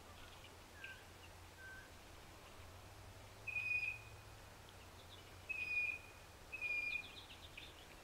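Wild birds calling at a snowy feeder: three clear, level whistled notes of about half a second each, the first about three and a half seconds in and the last two close together a couple of seconds later. Two shorter, lower whistles come in the first two seconds, and a few faint chips near the end.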